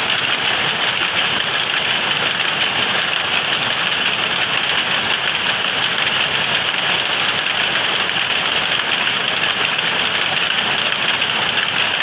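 Many power looms running together in a weaving shed: a loud, steady, dense mechanical clatter with no let-up.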